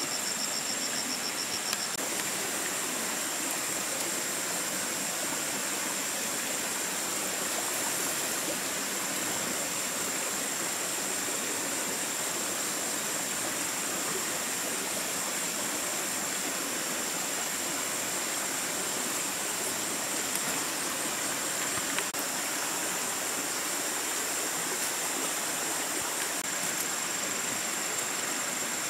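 Forest stream running over rocks: a steady, even rush of water, with a high-pitched pulsing tone held above it throughout.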